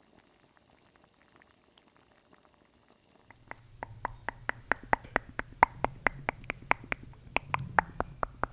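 A fast run of sharp taps or clicks, about six a second, starting a few seconds in over a low hum; the first few seconds are only faint ticks.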